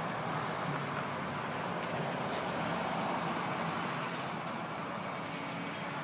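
Steady vehicle and traffic noise: a low engine hum under an even haze of road noise.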